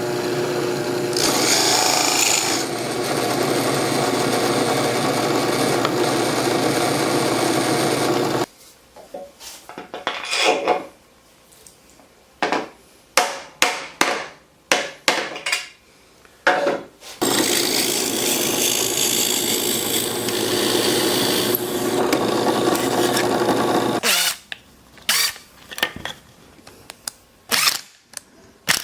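Workshop power tool motor running steadily for about eight seconds, then shutting off. It is followed by scattered knocks and clicks of wood and tools being handled, a second steady run of about six seconds, and more knocks near the end.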